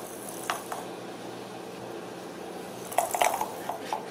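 A ball knocking against the inside of a sisal-wrapped cat track toy as kittens bat at it: two light clicks about half a second in, then a quick clatter of knocks about three seconds in and a few lighter ticks after.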